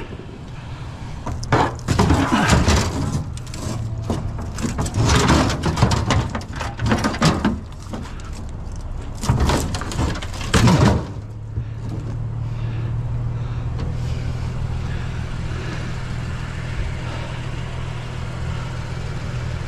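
Rusty metal garden frame clanking and scraping against a pickup truck's metal bed as it is loaded, several loud rattling clanks over the first ten seconds or so. After that, a vehicle engine's steady low hum.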